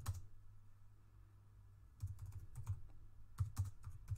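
Typing on a computer keyboard: a couple of keystrokes, a pause of nearly two seconds, then a quick run of keystrokes, each with a low thump beneath its click.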